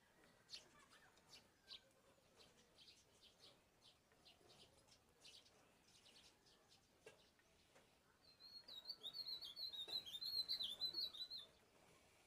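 Birds chirping faintly outdoors: scattered short high chirps, then after about eight seconds a fast, warbling song that runs for about three seconds and is the loudest part.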